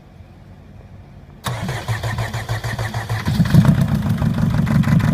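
Mercedes Sprinter's OM611 four-cylinder common-rail diesel starting about a second and a half in, then settling into an even idle by about three seconds in. It is running on three cylinders with the first cylinder's injector shut off, and without the knock of that faulty injector.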